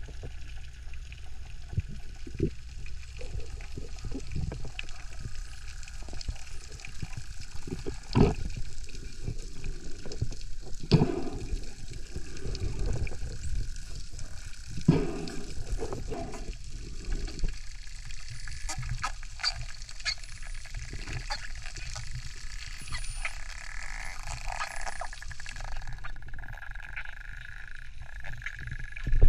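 Underwater sound picked up by a diving camera: a steady low water rumble with scattered clicks and knocks. In the later part, faint high whistles from the nearby pod of dolphins join in.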